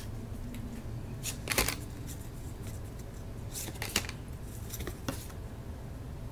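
Paper trading cards (1992 Upper Deck Minor League baseball cards) being leafed through by hand, one card slid off the stack at a time. There are a few short, soft flicks and swishes of card stock over a low steady hum.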